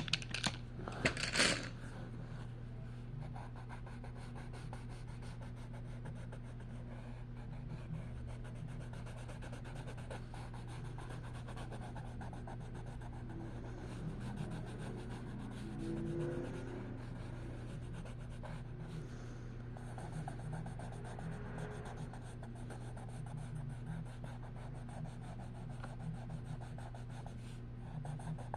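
Coloured pencil scratching and rubbing on paper as a picture is shaded in, over a steady low hum. Two short, louder noises come at the very start.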